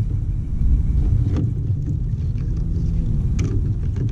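Wind rumbling on the microphone, with a couple of light knocks, about a second and a half in and again near the end, as gear is handled in the kayak.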